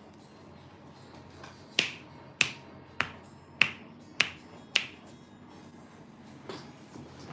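Six sharp snaps in a steady rhythm, a little over half a second apart, from the massage therapist's hands.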